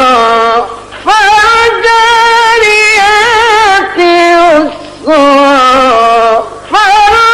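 Melodic Qur'an recitation by a single male reciter in the ornamented mujawwad style: long held notes with wavering pitch, in phrases broken by short pauses about a second in, near five seconds and about six and a half seconds in.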